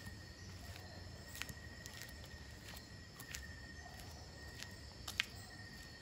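Faint night ambience: a steady, high-pitched insect chorus at two pitches, with a few scattered faint clicks.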